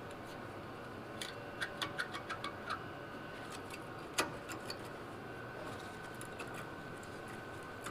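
Light clicks and taps of metal brake parts being handled: a scattered run of small ticks between about one and three seconds in, and a sharper click about four seconds in, over a faint steady hum.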